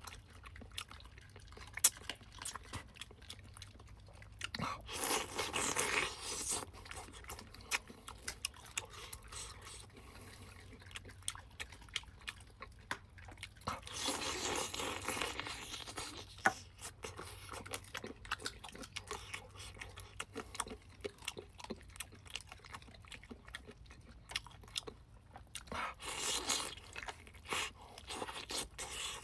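A person chewing and biting free-range chicken close to the microphone, with many small wet clicks and crunches. Louder crunching comes in three stretches of a second or two each.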